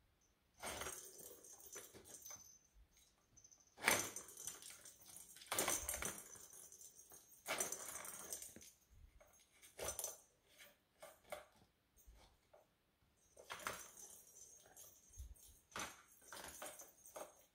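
A plastic ring-shaped cat track toy being batted by a kitten. It rattles and clatters in irregular bursts of about a second each, separated by short pauses.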